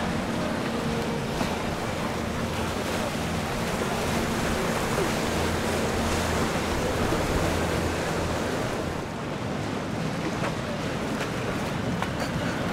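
Motor yachts cruising past: a low engine drone over the steady rush of water from their wakes, with some wind on the microphone.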